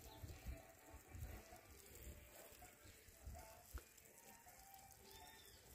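Near silence outdoors, with faint handling noises, one short sharp click a little before four seconds in, and a faint high call near the end.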